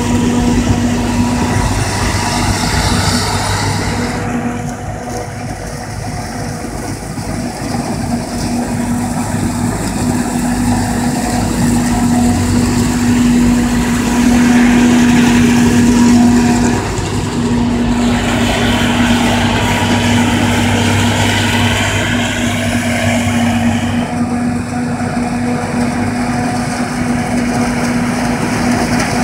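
Claas Jaguar 870 self-propelled forage harvester chopping maize, with the John Deere tractor and silage trailer running alongside. A loud, steady machinery drone with a constant hum, easing off for a few seconds about five seconds in.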